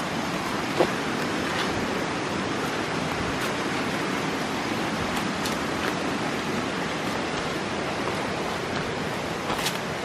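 A river rushing steadily, with a few footsteps on leaf-covered ground.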